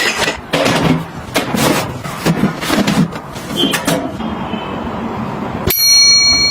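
Kitchen items and containers being handled and set down, a run of knocks, clicks and rattles. Near the end a small kitchen appliance motor starts suddenly with a steady high whine.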